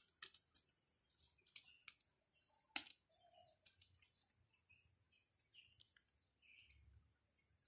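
Near silence: scattered faint clicks, the loudest a sharp one about three seconds in, with a few faint short bird chirps.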